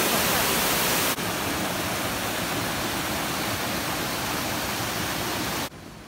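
Waterfall pouring over a sloping rock face: a steady, dense rush of falling water. It steps down slightly about a second in and drops away suddenly near the end.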